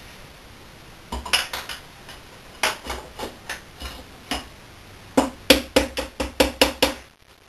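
Sharp metallic taps and clinks in irregular groups, ending in a quicker run of louder taps about five a second, as a piston held in a home-made ring compressor of oil-tin sheet and jubilee clips is worked into a bore of an Aston Martin V8 engine block.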